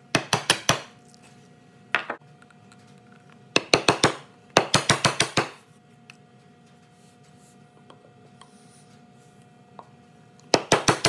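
Chisel driven into wood in quick runs of sharp taps, chopping out a bow-tie inlay mortise: a burst near the start, a couple of taps about two seconds in, two longer runs around four to five seconds, a pause, then another run near the end.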